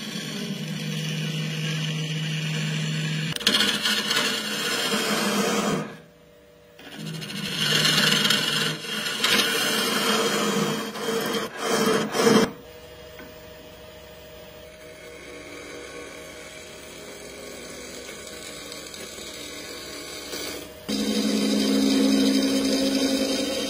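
Wood lathe running while a gouge cuts a spinning blank: a steady motor hum under the hiss and rasp of shavings being peeled off. The cutting drops out briefly about six seconds in, runs quieter from about twelve to twenty-one seconds, then comes back louder near the end.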